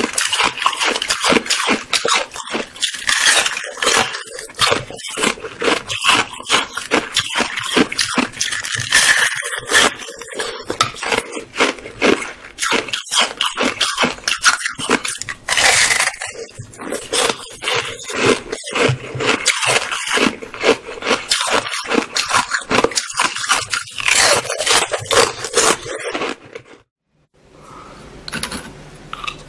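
Close-up crunching and cracking of a chunk of red-coloured ice being bitten and chewed, a dense run of rapid crunches. It breaks off about 27 s in, and quieter crunching follows.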